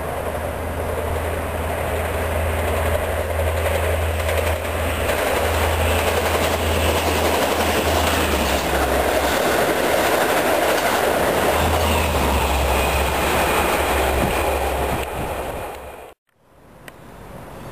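Long Island Rail Road passenger train of stainless-steel coaches passing close by, its wheels running on the rails in a steady rush with a low hum underneath. It swells over the first few seconds and cuts off abruptly near the end.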